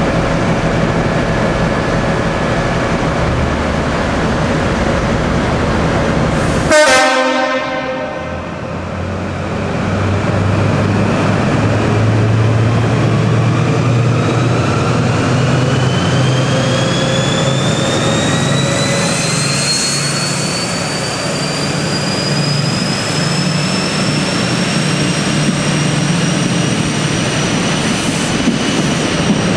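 Class 43 HST power car's Paxman Valenta V12 diesel working hard on departure, with its characteristic turbocharger scream: a whine that climbs steadily from about ten seconds in over a deep engine note. A short horn blast sounds about seven seconds in.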